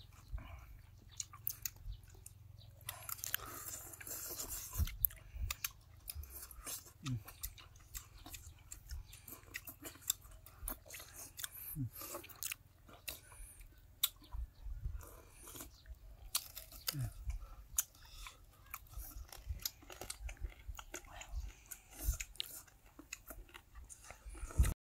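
A person chewing and biting food close to the microphone, eating duck and mushroom soup, with many irregular small smacks and clicks.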